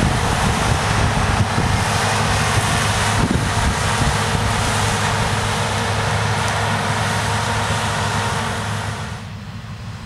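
New Holland CX8070 combine harvester running while harvesting rice: a steady low engine hum under a loud, even machinery noise. About nine seconds in, the sound becomes quieter and duller.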